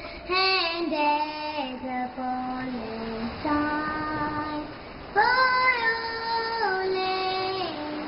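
A girl singing solo, holding long notes that slide from one pitch to the next, in a song about lasting friendship. About five seconds in she rises to a louder, higher held phrase.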